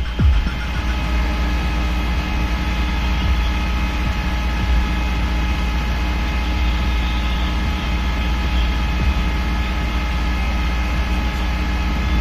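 Fire truck's diesel engine running steadily, a low rumble with a steady high whine over it.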